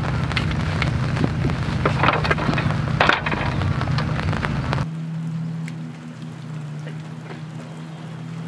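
Light rain pattering on a canvas tent, with scattered sharp taps and knocks. About five seconds in the sound drops to a softer, even patter.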